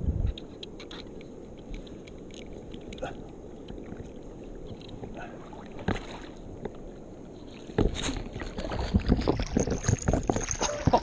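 Water splashing hard in the shallows from about eight seconds in, as a hooked permit thrashes at the surface while being landed by hand. Before that there is only soft wind and water noise with a few light ticks.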